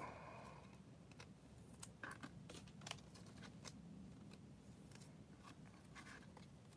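Faint, irregular light clicks and rustles of trading cards being handled and slid into card sleeves, close to near silence.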